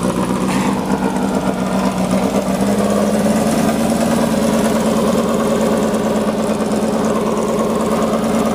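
Rail buggy's Volkswagen engine running steadily, its pitch rising a little about two and a half seconds in; the motor is still being broken in.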